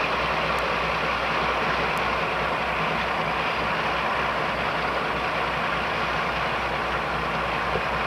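BR Class 42 Warship diesel-hydraulic locomotive running steadily close by, its twin Maybach diesel engines giving an even, low pulsing drone.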